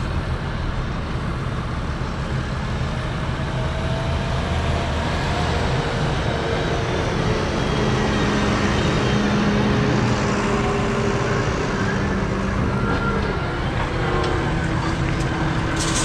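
Farm tractor's diesel engine running steadily, a little louder about eight to ten seconds in.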